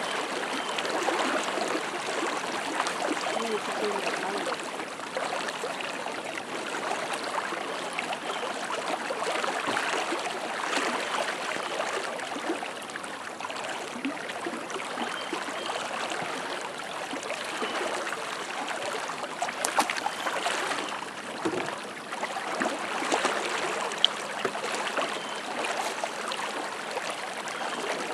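Flowing river water, a steady rushing hiss, with a few sharp clicks about two-thirds of the way through.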